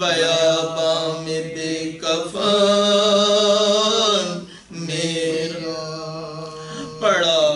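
A man chanting soz, a Shia elegiac recitation, unaccompanied, in long drawn-out melodic phrases. The voice breaks off briefly between phrases, about two, four and a half and seven seconds in.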